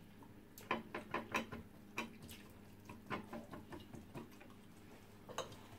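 Eating sounds: a fork clicking against a plate, with mouth smacks and chewing. A quick run of sharp clicks comes about a second in, and scattered ones follow.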